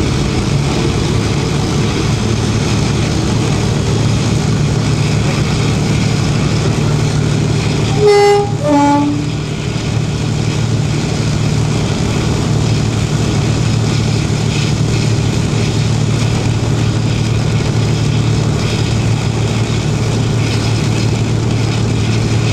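Twin Maybach diesel engines of Class 52 'Western' diesel-hydraulic D1013 running steadily under way, heard from inside the cab. About eight seconds in the locomotive's two-tone horn gives one short blast, a higher note followed by a lower one.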